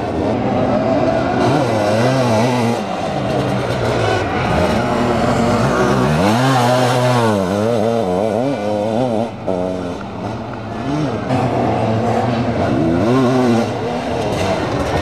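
Sidecar motocross outfits racing, their engines revving up and falling back again and again as they accelerate and shift gears. More than one engine is heard at once, with a big rise and fall in pitch about halfway through.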